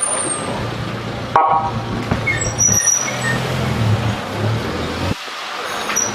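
Low-speed vehicle engines running steadily, with one short horn toot about a second and a half in.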